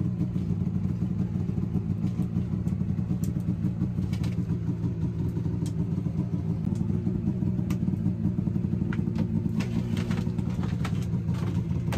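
An engine runs steadily with an even, low hum that does not change. A few faint clicks come in the second half.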